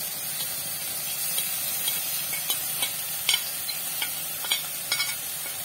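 Masala paste with ground spices frying in hot oil, sizzling steadily, while a spoon stirs it, scraping and clicking against the pan about every half second.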